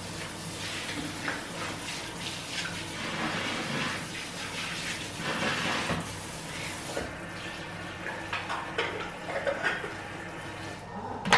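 Kitchen faucet running water into the sink while things are rinsed under it, with scattered clinks. The water stops near the end, followed by one sharp knock.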